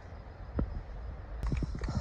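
Hikers' footsteps on a mountain trail: a run of dull, uneven thuds over a low rumble, coming closer together near the end.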